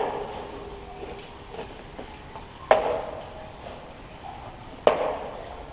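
Kayak paddle knocking against the sides of a pipe tunnel three times, about two seconds or more apart. Each knock is sharp and rings and echoes briefly in the enclosed tunnel.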